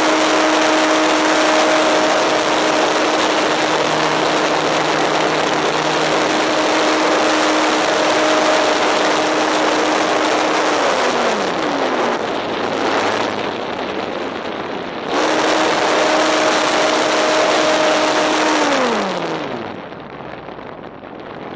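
Electric motor and propeller of an E-flite Maule M7 radio-controlled plane, heard from a camera on board: a steady whine over heavy wind rush on the microphone. The whine drops in pitch as the throttle is cut about ten seconds in, comes back sharply about fifteen seconds in, and winds down again near the end as the plane glides.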